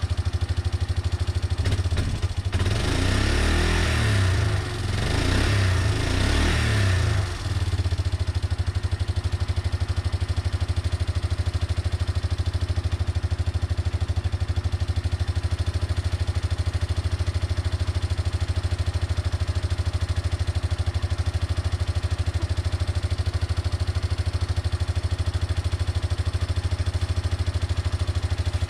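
1989 Yamaha Moto-4 350 ATV's single-cylinder four-stroke engine running after its rebuild. It is revved twice a few seconds in, then settles back to a steady idle.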